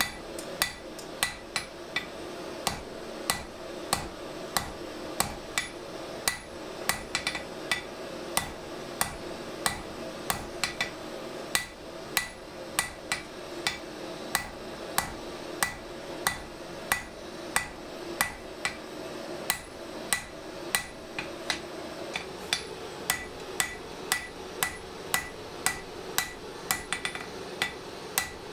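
Hand-hammer blows on red-hot steel on an Emerson Horseshoe Supply anvil, about two strikes a second, each with a short metallic ring. The blows forge out the blade of a curved drawknife. A steady background noise runs underneath.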